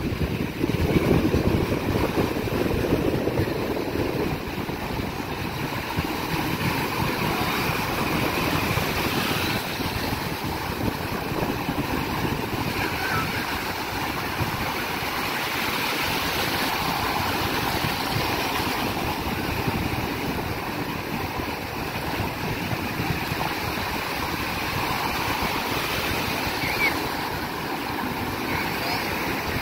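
Small sea waves breaking and washing up a sandy shore: a continuous wash of surf. Wind buffets the microphone, heaviest in the first few seconds.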